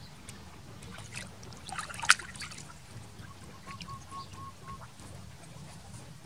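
Water splashing and sloshing as a dog swims with a monkey climbing onto its back, with a sharp click about two seconds in. A quick run of faint short chirps comes in the middle.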